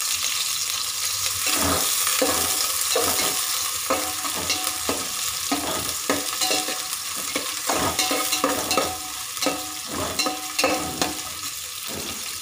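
Sliced onions sizzling as they sauté in hot oil in a metal pot, while a metal spoon stirs them and scrapes against the pot in many short, irregular strokes.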